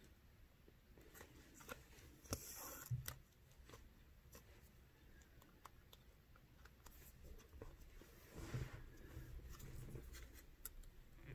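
Faint beadwork handling sounds: needle and thread drawn through the stiff felt backing, a scratchy rasp about two seconds in and again about eight seconds in, with light ticks between.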